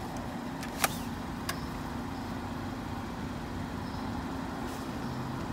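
Car engine idling steadily. Two sharp clicks come about a second in, as a card is pushed into and drawn from the pay station's card reader.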